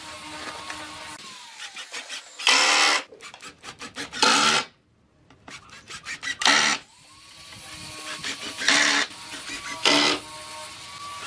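Woodworking tool work on pine: a power-tool motor hums, winds down just over a second in and spins back up around seven seconds in. Over it come about five loud rasping strokes of roughly half a second each, with runs of quick clicks between them.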